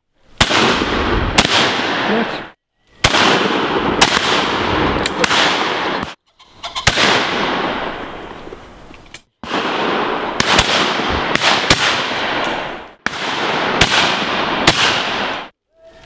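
Shotgun shots fired at high driven game birds, a sharp shot every second or so over a constant noisy background. The sound breaks off abruptly several times where short shots are edited together.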